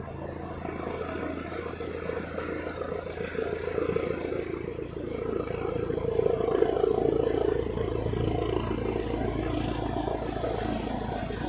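Police helicopter hovering and circling low overhead, a steady rotor and engine drone that grows louder about halfway through as it comes closer.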